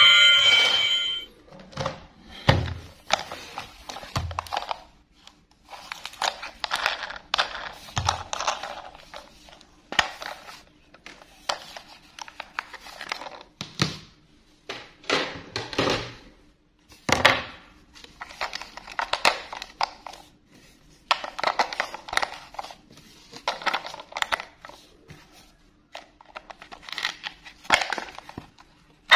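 Hard plastic toy being handled: irregular clicks, knocks and rustles, with a few dull thunks, as a battery-operated toy train is turned over and its battery compartment cover is fitted and snapped shut.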